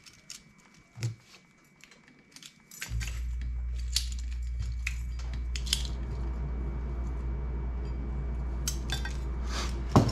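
Light metallic clicks and ticks of thin safety wire and safety-wire pliers being worked against a steel brake drum and rotor. About three seconds in, a steady low hum starts abruptly and continues. A sharp click comes near the end.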